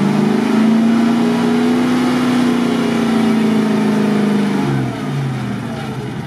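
GAZ-66 truck's engine held at high revs under load as the truck pushes through deep mud, easing off about five seconds in.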